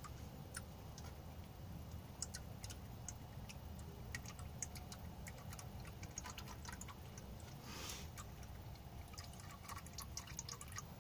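Old engine oil dripping from the car's underside into a catch pan as the last of it drains, in faint, irregular drips. A brief soft noise comes about eight seconds in.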